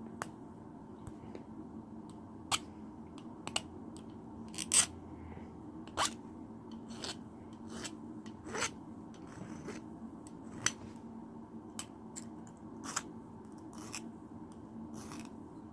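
Hand file rasping on the point of a steel throwing spike in short, separate strokes, irregular and roughly one a second, over a faint steady low hum.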